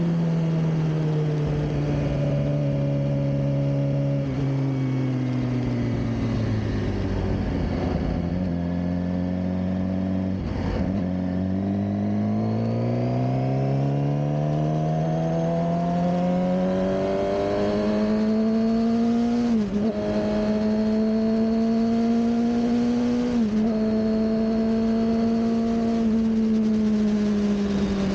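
Suzuki GSX-R600 K7's inline-four engine on the move: it slows down over the first several seconds, then picks up speed, dips briefly twice, and holds a steady cruise before easing off near the end.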